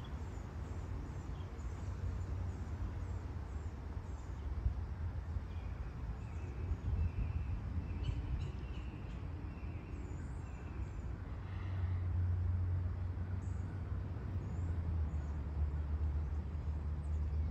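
Outdoor ambience: a steady low rumble that swells about two-thirds of the way through, with faint bird chirps, including a run of short repeated notes midway.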